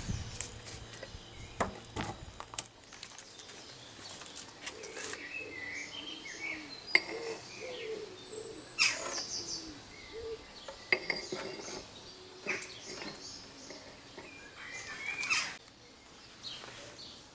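Small birds chirping, with a few sharp clicks and knocks scattered among the calls.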